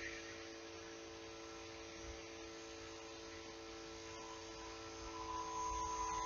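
Faint steady electrical hum of room tone, made of a few steady tones; a higher steady tone joins about five seconds in.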